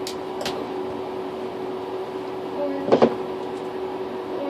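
Foam squishy toys being rummaged through and knocked about in a bathtub, with a few short clicks and a couple of sharper knocks about three seconds in, over a steady hum.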